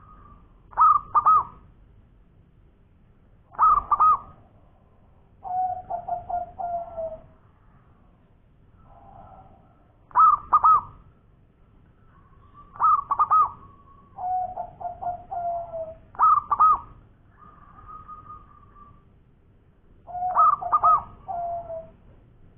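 Zebra dove cooing its song: a loud double note followed by a run of quick stuttering coos that end in a falling trill, repeated about every three seconds, with softer drawn-out coos between the phrases.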